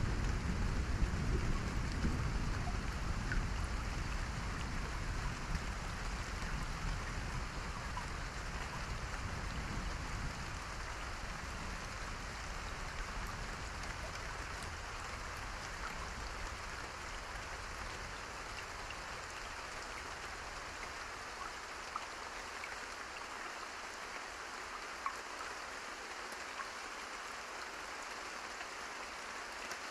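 Steady rain falling. A low thunder rumble at the start dies away over the first half.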